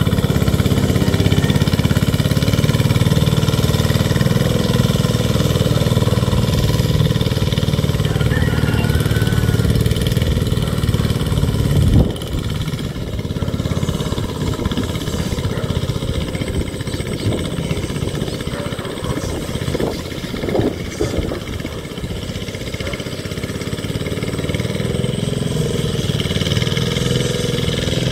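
Walk-behind hand tractor engine running steadily while plowing a rice paddy. About twelve seconds in it falls a little quieter and runs less evenly.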